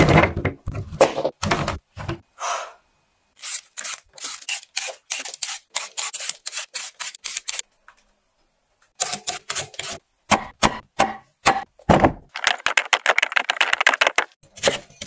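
Whole lotus roots knocking together as they are handled, then rapid runs of scraping strokes from a vegetable peeler stripping the skin off lotus roots, broken by a short pause about halfway through.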